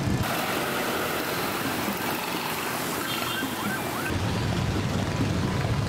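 Street ambience: a steady rush of passing traffic noise, with a few faint high chirps about three seconds in.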